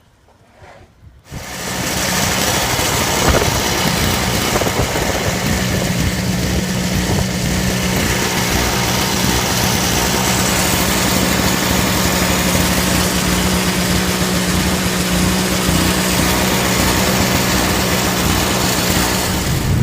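An engine running steadily with a constant low hum, coming in loud about a second in.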